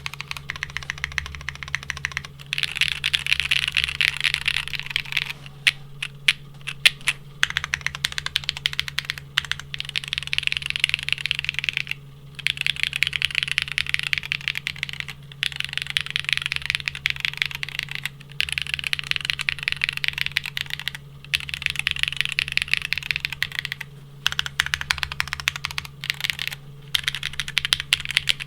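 Typing on a Geonworks F1-8X V2 mechanical keyboard in its linear build: lubed Geon Black linear switches with 67.5g springs on an aluminium plate, under GMK Striker keycaps. Fast keystrokes come in bursts of a few seconds with short pauses, and around five to seven seconds in the keys are struck singly and more slowly.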